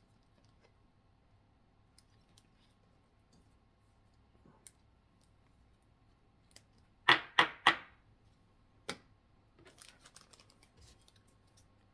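Pokémon trading cards and booster-pack wrapper being handled: about seven seconds in, three sharp snaps come about a third of a second apart, then one more, followed by a run of light clicks and rustles.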